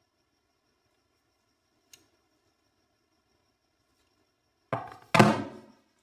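Two knocks about half a second apart near the end, the second louder, each fading quickly, after a faint click about two seconds in.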